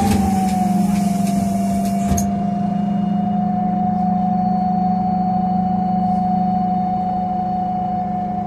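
Solaris Urbino 12 CNG city bus heard from inside the passenger cabin: its Iveco Cursor 8 gas engine and Voith automatic gearbox run at a steady pace, a steady whine over the engine drone. A hiss cuts off about two seconds in.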